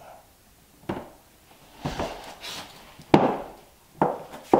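Click-lock floor plank being knocked down and locked into place on a subfloor: about five short, uneven wooden knocks, the loudest about three seconds in.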